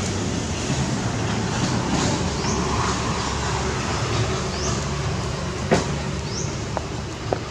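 Steady rumbling hiss, loud throughout, with short high rising chirps every couple of seconds and two sharp clicks near the end.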